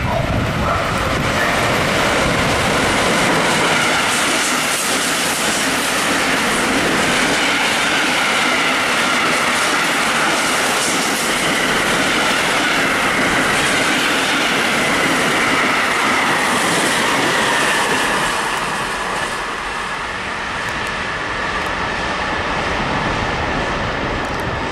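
Container freight train rolling past at speed: a steady, loud noise of wheels on rails, with wavering high tones over it, easing off slightly near the end.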